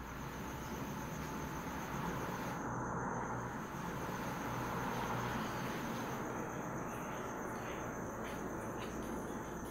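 Steady background noise with no distinct events: an even ambient hiss.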